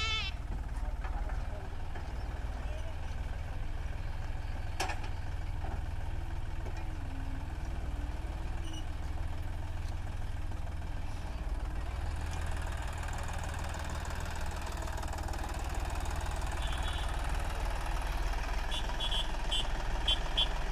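John Deere tractor's diesel engine running steadily as it pulls a potato planter through the field, growing louder in the second half as the tractor comes closer.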